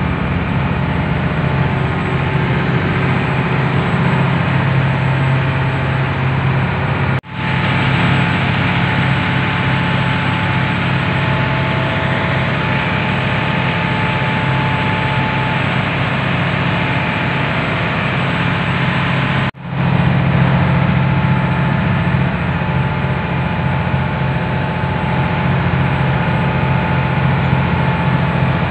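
A launch's engine running steadily as the boat travels at speed, a constant low drone. Twice the sound cuts out for a split second.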